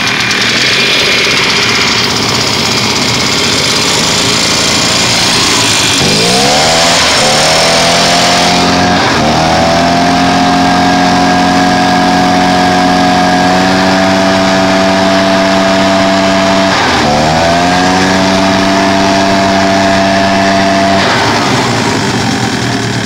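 Husqvarna 150BT backpack blower's rebuilt 50cc two-stroke engine running. About six seconds in it is revved up and held at high speed, briefly let off and revved again around seventeen seconds, then let back down near the end. It is being broken in on new piston and rings by alternate idling and revving, and the owner judges it still needs a little tuning.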